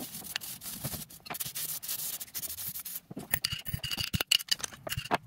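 Small wire brush scrubbing quickly back and forth over the rusty, seized worm screw and jaw of an adjustable wrench, a scratchy rasping, to free it up. A thin high squeak comes and goes about three to four seconds in.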